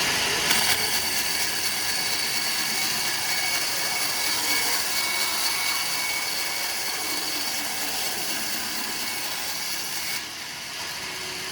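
Power saw cutting through wood with a steady high whine, the cut ending about ten seconds in.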